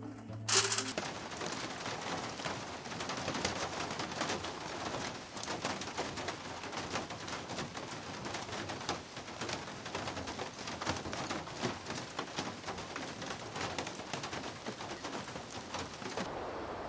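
Reflective foil insulation crinkling and crackling in an irregular rush of small clicks as it is handled and pressed flat against a log wall.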